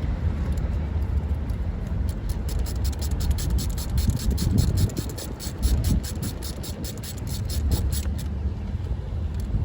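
Hand ratchet wrench clicking rapidly and evenly, about six clicks a second, as a 10 mm nut on the starter is run down. The clicking starts about two seconds in and stops near the end, over a low steady rumble.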